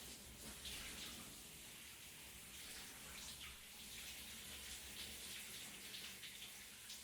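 Shower running: a steady hiss of spray with uneven splashes scattered through it.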